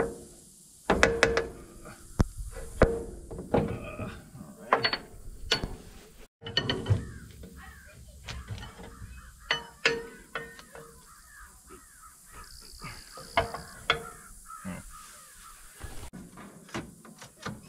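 Ratchet wrench clicking in short, irregular strokes, with sharp metal clicks and clanks, as the leaking loader lift cylinder is unbolted for removal.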